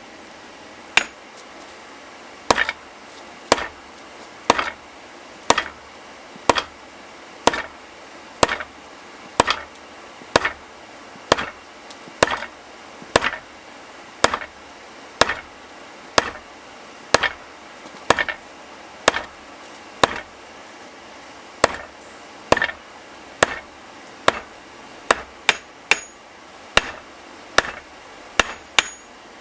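Hand hammer blows on hot steel over an anvil while forging a round punch, each strike sharp with a short ring. They come about once a second, pause briefly about two-thirds of the way through, then come quicker near the end, over a steady hiss.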